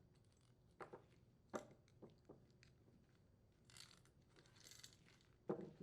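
Faint clicks, knocks and light scraping from an Echo CS310 chainsaw's guide bar and old cutting chain being handled as the bar is lifted off and the chain pulled away. The sounds are scattered and short, with brief soft scrapes about four seconds in.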